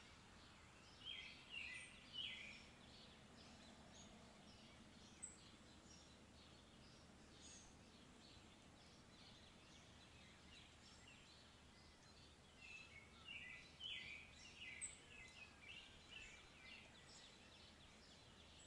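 Faint birdsong: many short chirps and calls from several birds, busiest about a second in and again through the latter part, over a steady background hiss.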